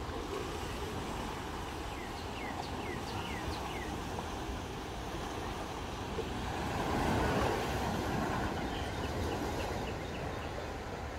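Gentle ocean surf washing on the shore with wind buffeting the microphone, the wash swelling briefly about seven seconds in. A bird gives four short falling chirps about two seconds in, and a quick run of short chirps comes near the end.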